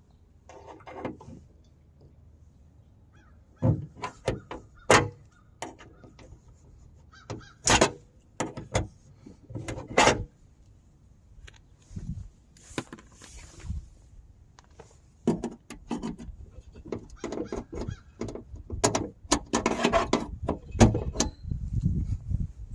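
Plastic car trim being pried off and handled: a series of sharp clicks and knocks, with creaking and scraping, as panels and clips come loose.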